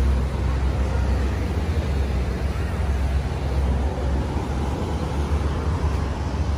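Steady low rumble of motor vehicles and road traffic.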